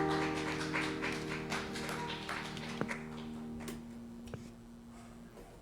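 A held chord from the worship band rings on and fades away, with scattered hand claps from a small congregation that thin out and die down.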